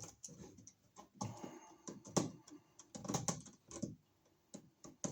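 Irregular small clicks, taps and brief scrapes of a screwdriver and hands working the screw terminals and wires of a wall receptacle.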